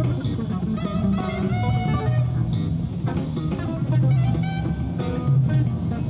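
Instrumental jazz: guitar lines over a bass line and drum kit.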